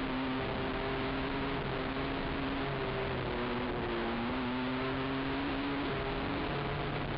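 Racing ATV engine running hard under throttle, its pitch stepping up and down as the rider works the throttle, heard muffled through a camera housing with steady wind and trail noise.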